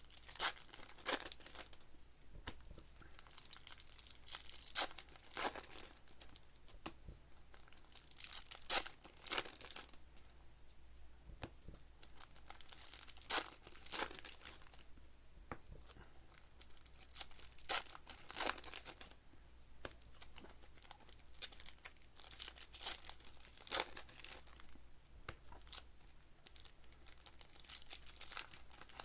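Foil wrappers of baseball card packs being torn open and crinkled by hand, in repeated short bursts of crackling every few seconds.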